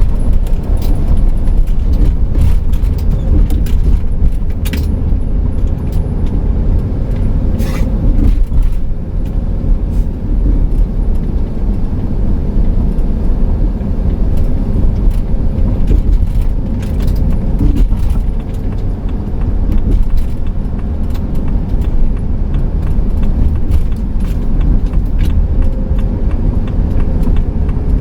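Inside the cab of a 2008 Pleasure-Way Ascent camper van on the move: a steady low rumble of engine and road noise. Scattered small rattles and clicks from the cab run through it.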